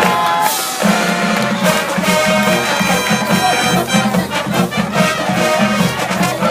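Brass band playing, trumpets and trombones over a steady beat.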